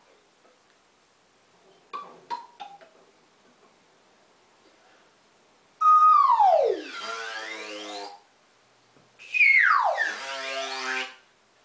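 Udderbot, a rubber glove stretched over a bottle and blown like a wind instrument, sounding two long falling swoops in pitch. The first starts about six seconds in and breaks into wavering, stepped lower notes. The second starts about three seconds later, higher, and slides down again. A few faint clicks come about two seconds in.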